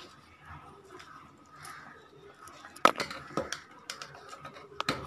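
Metal ladle stirring curry and clinking against the metal pot, a handful of sharp clinks in the second half, the loudest about three seconds in.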